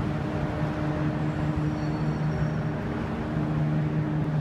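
Steady low mechanical drone of machinery running, with a higher hum in it that cuts off near the end.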